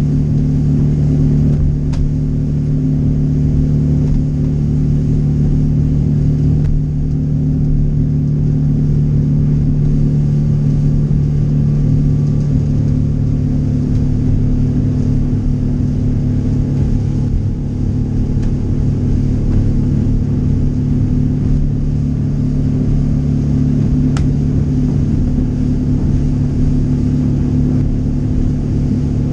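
Boat engine running steadily at cruising speed, a constant low drone with rumble, heard from inside the enclosed cabin of a Judge 24 Chesapeake under way.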